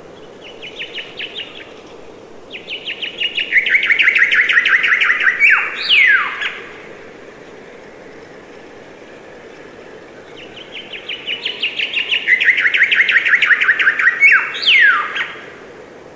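A songbird singing: a short phrase near the start, then two full songs several seconds apart. Each song is a fast run of repeated notes that steps down in pitch and ends with a couple of quick downward-slurred notes.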